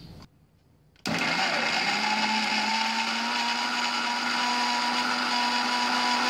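Electric mixer grinder with a stainless steel jar grinding beetroot, green chilli and garlic into a paste. The motor starts about a second in, its whine rising briefly in pitch as it spins up, then runs steadily at full speed.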